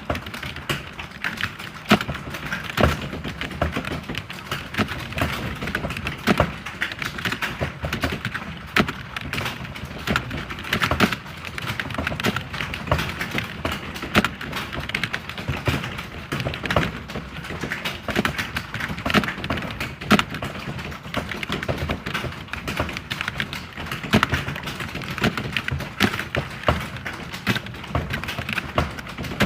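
Computer keyboard being typed on continuously: a fast, unbroken patter of key clicks with louder strokes standing out here and there.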